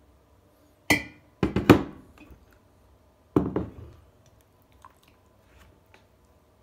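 Large three-litre glass jars being moved and set down on a wooden table: a sharp knock about a second in with a brief glassy ring, a quick cluster of knocks half a second later, and two more knocks about three and a half seconds in.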